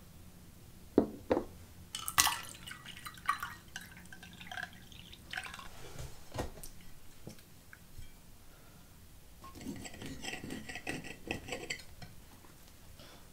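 Kitchen handling sounds of dishes and utensils: two sharp knocks about a second in, scattered clinks and taps, then a quick run of small rattling clicks near the end.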